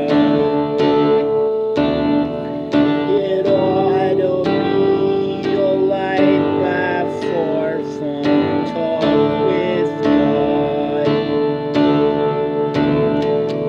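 Acoustic guitar being strummed, playing sustained chords with regular strokes.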